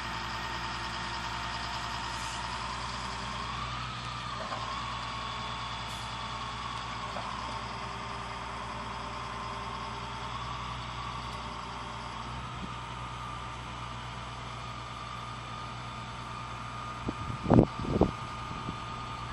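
Vehicle engine idling steadily, a low hum with a faint wavering whine over it. Two sharp knocks near the end.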